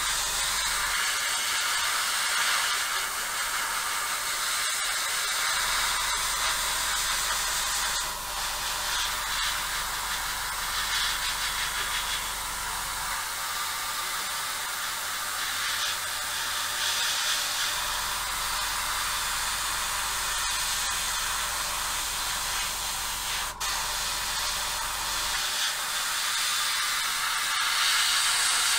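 Airbrush spraying a thin desert sand paint mix in light passes, a steady air hiss that swells and eases as the trigger is worked.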